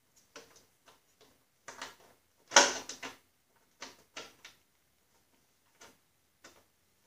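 Scattered clicks and knocks of metal parts being handled as the chain case and differential of a Snapper rear-engine rider are fitted together for bolting, the loudest cluster about two and a half seconds in.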